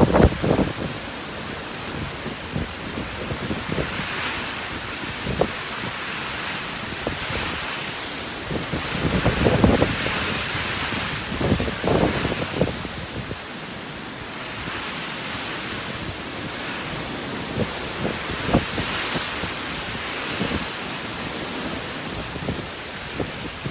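Typhoon winds blowing with a steady rushing noise, gusting unevenly and buffeting the microphone with low rumbles, strongest near the start and again about ten seconds in.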